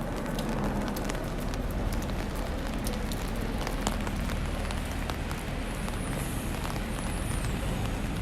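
Rain pattering on an umbrella: many sharp drop ticks over a steady hiss, with a low rumble underneath.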